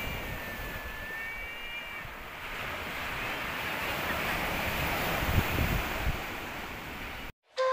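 Surf washing on a beach with wind buffeting the microphone, in low gusty rumbles; it cuts off abruptly near the end.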